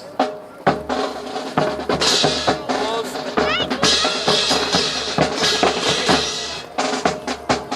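Drum-led music with many sharp percussive hits in an irregular rhythm, over sustained tones, accompanying a cadet drill performance.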